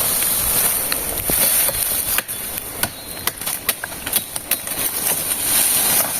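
Machete chopping through storm-damaged peach palm (pupunha) stems and leaves: a run of sharp cuts and cracks, thickest in the middle, over a steady high hiss and rustling foliage.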